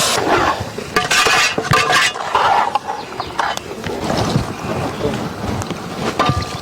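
Water being poured into a cooking pot of country-chicken gravy, splashing in bursts over the first two seconds, with light metal clinks.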